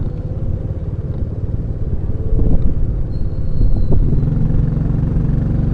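Motorcycle engine running at low parade speed, its exhaust pulses heard close up, with the throttle opened a little about two seconds in and again near four seconds.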